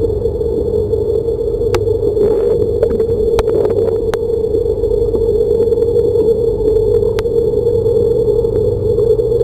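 Steady droning hum picked up underwater in a swimming pool, with a handful of sharp clicks scattered through it.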